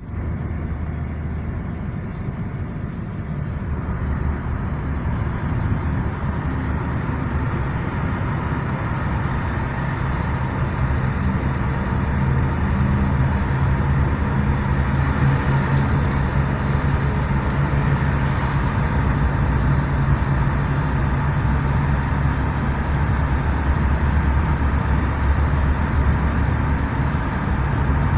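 A car driving: steady engine hum and tyre noise, getting somewhat louder over the first dozen seconds and then holding steady.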